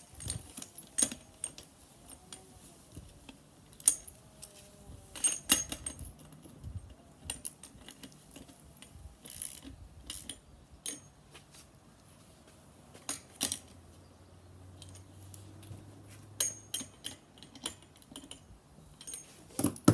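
Scattered metallic clicks and clinks of a wrench on the front axle nuts of a BMX as the front wheel is tightened.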